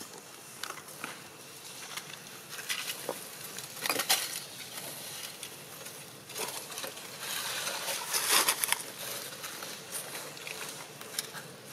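Dry leaves and twigs rustling and crackling in irregular bursts, loudest about four seconds in and again near eight seconds in.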